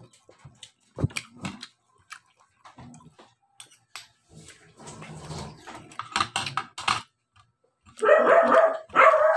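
A dog barking and whining, ending in two long, loud calls near the end. Scattered clicks of a spoon and fork against a plate come before them.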